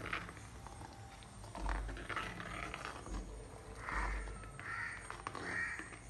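Crows cawing repeatedly, short harsh calls spaced under a second apart, over the faint sizzle of herbal oil bubbling in a pan as it is stirred with a ladle.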